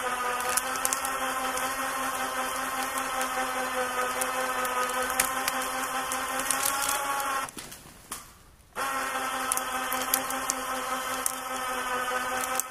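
Champion 3500 lb electric ATV winch running under heavy load on a double-line pull, a steady whine. It stops for about a second a little past halfway, then starts again.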